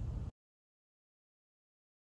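Faint room noise that cuts off abruptly about a third of a second in, followed by dead digital silence.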